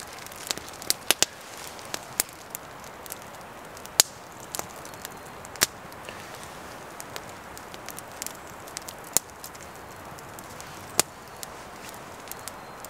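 Wood campfire burning with irregular crackles and sharp pops over a steady hiss; several louder pops stand out.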